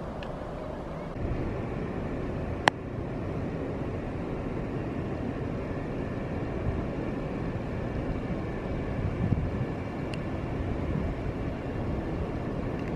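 Steady low outdoor background rumble with no clear single source, stepping up slightly a second in, with one sharp click a little under three seconds in.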